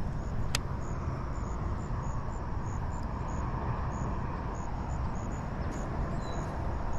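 Steady rush of water from a small waterfall. A single sharp click comes under a second in, and faint high chirps repeat throughout.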